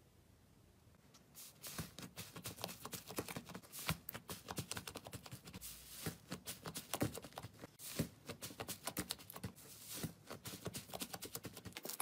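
Blue-and-white slime squished and pressed by hand, giving a steady run of small crackling pops from about a second in.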